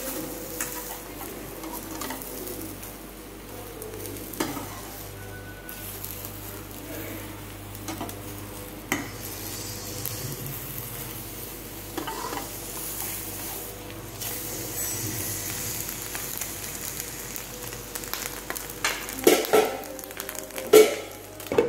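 Eggs sizzling as they fry in a nonstick frying pan, with a slotted spatula scraping and folding them. A few sharp knocks of the spatula against the pan come near the end.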